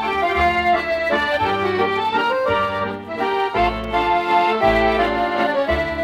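Accordion music: a moving melody played over held bass notes.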